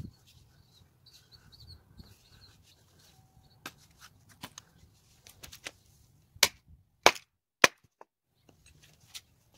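A hatchet chopping on a log chopping block, splitting a stick of wood: three sharp chops about two-thirds of a second apart, after a few lighter clicks as the leather sheath is taken off the head.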